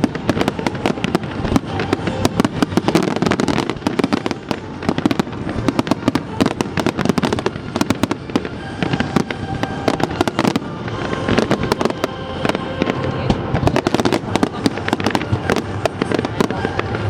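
Fireworks display in a dense, continuous barrage of rapid bangs and crackles, with no pause between bursts.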